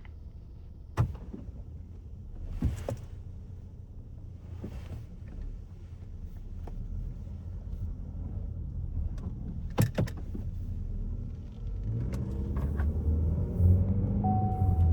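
Cabin sound of a 2018 Chevy Equinox with the 1.5-litre LFV turbo four-cylinder, the engine running low and steady at light load, with two sharp clicks. The engine and road rumble grow louder near the end.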